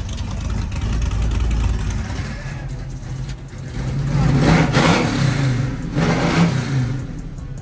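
LS-swapped cammed V8 in a G-body Monte Carlo running, revved up twice in the second half and settling back in between.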